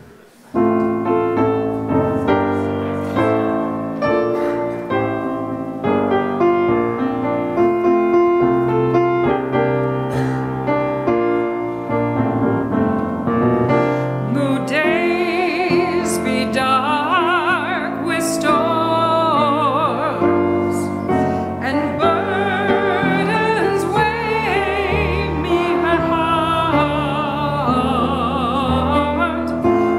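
Piano plays a hymn introduction, and about halfway through voices come in singing the hymn with vibrato over the piano accompaniment.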